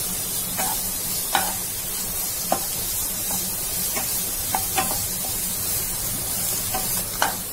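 Chopped onions sizzling as they are sautéed in hot mustard oil in a nonstick kadai. A wooden spatula stirs them, with short irregular clicks and scrapes against the pan.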